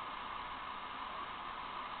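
Steady background hiss like static, even throughout, with no distinct events.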